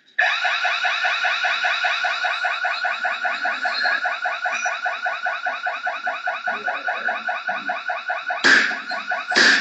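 Electronic alarm sounding in a rapid, steady pulsing pattern that switches on suddenly. Near the end, two loud sharp knocks or crashes.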